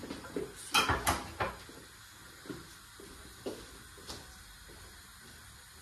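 Kitchen knocks and clinks: two loud ones about a second in, then a few softer taps roughly a second apart, with quiet between.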